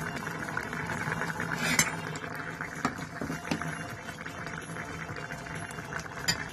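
Coconut-milk curry of mango and dry fish bubbling at a steady boil in a saucepan: a dense crackle of bursting bubbles, with a few louder clicks about two and three seconds in and again near the end.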